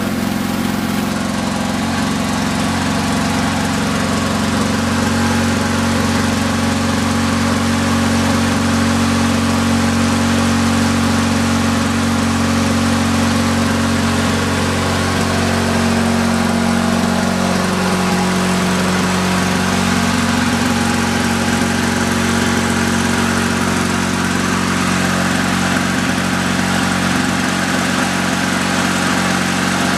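1965 Lawn-Boy model 5233's two-stroke engine running steadily after a rebuild with a new cylinder and piston. Its pitch drops slightly a little over halfway through.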